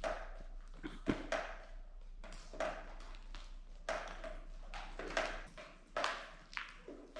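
Footsteps on a hard floor in an empty building, uneven and about two a second, each step a short scuffing strike.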